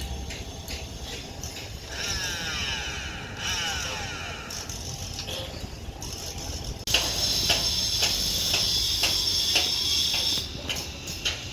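Excavator machinery clanking and rattling over a steady low rumble, with whirring that rises and falls; about seven seconds in it suddenly gets louder, with a harsher rattle and regular clicks.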